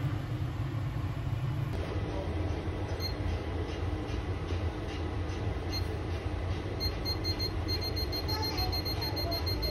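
Short high-pitched electronic beeps from a steam oven's control panel as the timer buttons are pressed, a few at first and then repeating steadily in the second half, over a steady low hum.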